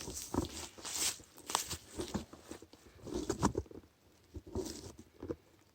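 Footsteps crunching through dry leaf litter and twigs on the forest floor, roughly two a second, slowing and stopping about four seconds in with a couple of last crunches.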